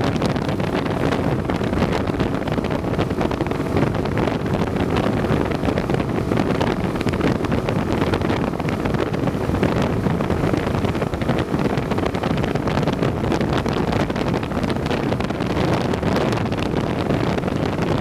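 Steady wind noise buffeting the microphone over the running of a small boat's motor as the aluminium boat moves along.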